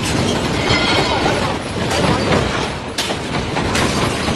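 Earthquake shaking: a continuous loud rumbling and rattling, with sharp clattering knocks a few times, about two, three and nearly four seconds in.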